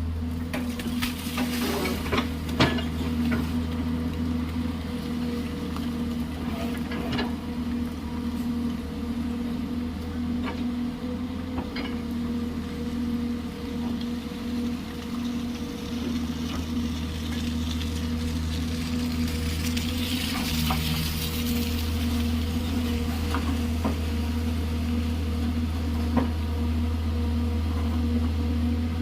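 JCB excavator's diesel engine running steadily under work, with scattered knocks and clicks from the bucket digging in gravel and rock. The loudest knock comes a couple of seconds in, and a brief hiss comes about two-thirds through.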